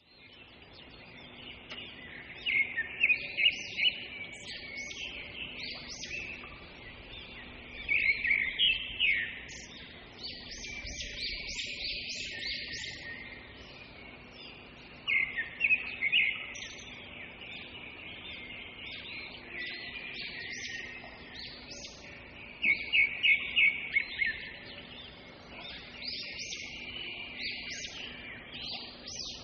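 Forest birds singing. A loud song of several quick repeated notes comes back about every six to seven seconds over a steady chorus of softer chirps.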